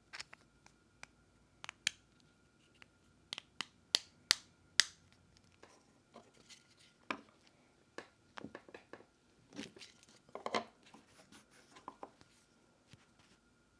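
Hard 3D-printed PETG-CF plastic joint pieces clicking and knocking as they are handled, fitted together and pressed against a wooden workbench: scattered sharp clicks, a quick run of louder ones about three to five seconds in, and a short sliding scrape of plastic around ten seconds in.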